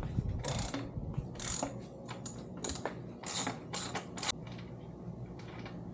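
Ratchet wrench clicking in a series of short back-strokes as the rear axle nut is loosened.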